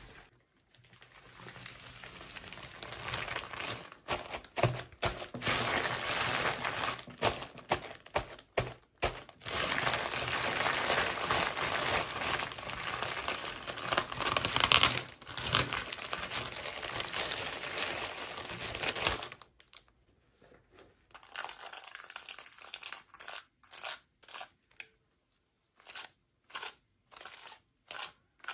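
Toy packaging being crinkled and torn open by hand for a long stretch, then after a short pause a run of short, crisp sounds, about one or two a second.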